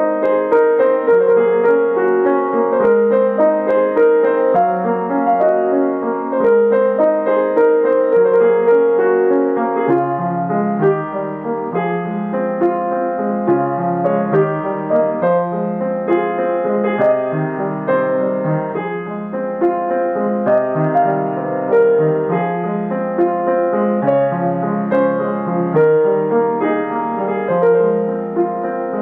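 Solo grand piano, a Young Chang, playing a gentle piece in flowing broken-chord figures over a steady bass line, which moves lower about ten seconds in.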